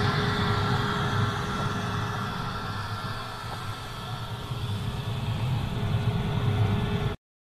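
Vehicle engine running steadily with a constant whine, dipping a little in the middle and rising again before cutting off suddenly near the end.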